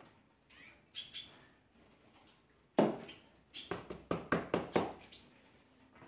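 Spirulina powder being tapped out of a small plastic pot into a plastic bottle of feed: one sharp knock about halfway through, then a quick run of about six light taps.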